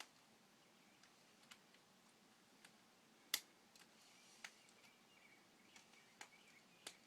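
K'nex plastic pieces clicking as they are handled and fitted together: a few scattered sharp clicks over a quiet background, the loudest about halfway through.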